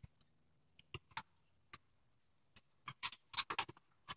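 Faint, irregular clicks and metallic ticks from a hand seamer's jaws gripping and squeezing the rib edge of a steel roof panel, with a quicker cluster about three seconds in.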